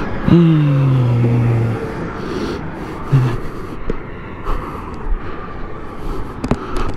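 Motorcycle on the move with steady riding noise. A loud engine note comes in just after the start and falls in pitch over about a second and a half.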